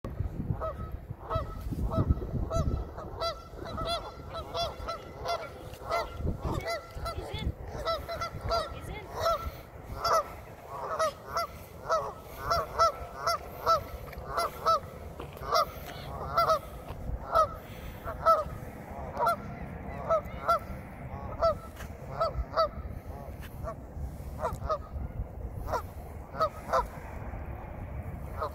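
A flock of geese honking, short calls repeating about twice a second throughout.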